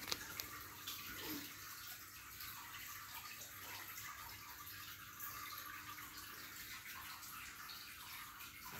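Steady faint hiss of background noise, with a couple of light knocks in the first half second.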